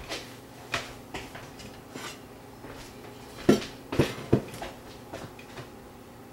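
Dishes and metal cookware clattering at a kitchen sink, with scattered light clinks and three louder knocks a little past halfway, as a stainless colander and strainer are lifted off the sink.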